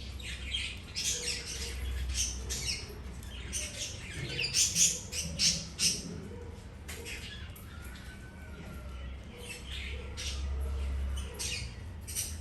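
Several birds chirping and squawking in quick, overlapping high calls, busiest about four to six seconds in, over a low steady hum.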